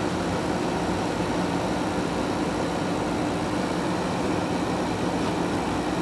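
JCB backhoe loader's diesel engine running steadily as its backhoe arm digs soil: a constant low drone with no clear knocks or changes.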